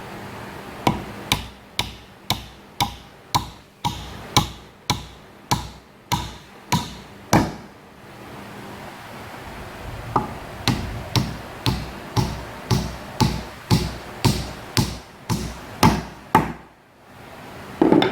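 Steady hammer taps on wood, about two a second, in two runs of a dozen or so strikes with a short pause between them.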